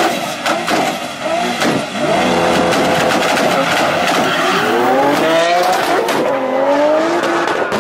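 A Lamborghini Aventador V12 and a turbocharged VW Polo R32 revving hard and accelerating off a drag-race start, engine pitch climbing in several sweeps, with tyre noise.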